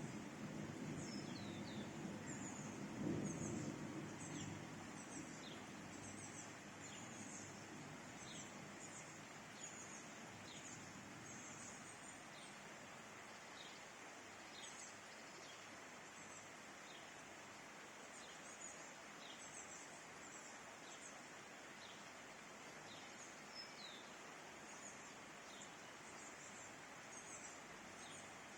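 Faint steady hiss of a rain shower with small birds chirping over and over. A low rumble fades away over the first few seconds.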